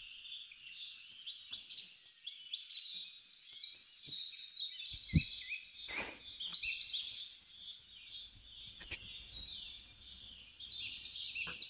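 Many small birds chirping and singing in a dense, continuous high chatter, with a few faint, short knocks scattered through it.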